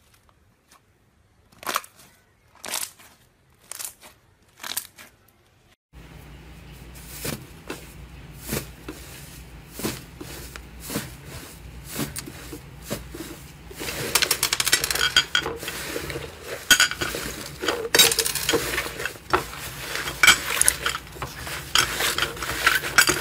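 Slime being handled by hand. First come four sharp wet pops as blue slime is pressed through a wire grid. Then fluffy blue slime is squished, pressed and pulled apart in a bowl with dense crackling and sticky tearing sounds, louder and busier from about halfway through.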